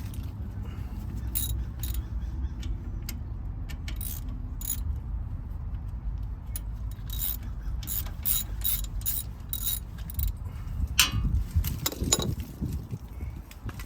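Irregular sharp clicks and clinks of hand tools working on the 1973 VW Beetle's distributor, which is being gone over again because it is suspected of giving no spark. Under them runs a steady low rumble, with a louder scraping patch about eleven seconds in.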